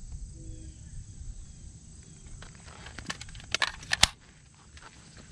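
AR-15 service rifle being loaded: a cluster of sharp metallic clicks about three seconds in, ending in one loud clack a second later.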